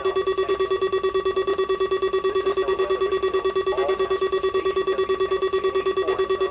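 Weather alert radio's alarm sounding: a steady buzzy beep pulsing rapidly, about eight times a second, without a break.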